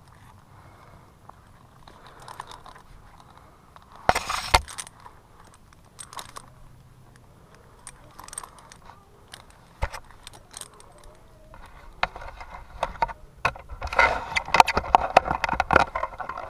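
Metal climbing hardware on a tree-climbing harness, carabiners and rope devices, jingling and clicking against each other with some scraping as the climber moves. A short louder clatter comes about four seconds in, and a longer, busier stretch of jangling near the end.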